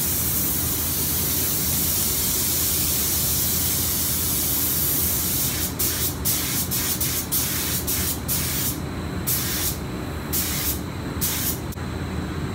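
Air-driven gravity-feed spray gun spraying 2K clear coat: one continuous hissing pass for about five seconds, then a string of about ten short trigger bursts.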